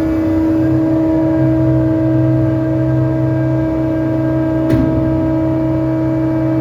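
Heavy machinery running steadily during container loading, a constant droning hum with a deeper engine note joining about a second in, and one short sharp knock about three-quarters of the way through.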